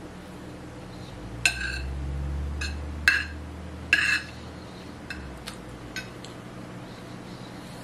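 Cutlery clinking against a dinner plate during eating: four sharp, ringing clinks between about one and a half and four seconds in, then three lighter taps.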